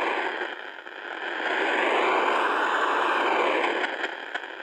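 Old AM radio tuned to about 530 kHz giving out loud static, its interference from corona discharge on a high-voltage transformer. The noise swells and fades as the radio is moved, dipping about a second in and again near the end.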